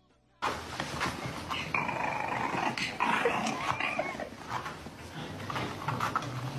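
A dog growling and grumbling, starting suddenly about half a second in and going on with a rough, noisy sound.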